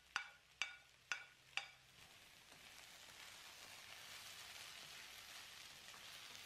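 Four light metallic clinks about half a second apart as scrambled egg is knocked from a pan into a wok. From about two seconds in, a faint steady sizzle follows as the stir-fried vegetables, chicken and egg are stirred with a wooden spatula.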